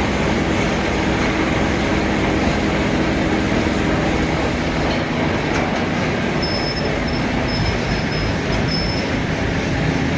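Hydra mobile crane's diesel engine running steadily under load while it lifts a cast-iron band saw body. A faint high squeal comes and goes in the second half.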